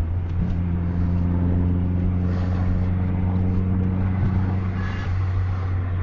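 Bus engine running with a steady low drone.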